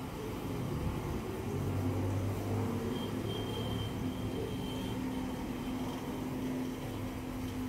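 Steady low mechanical hum with a faint high tone for a couple of seconds in the middle.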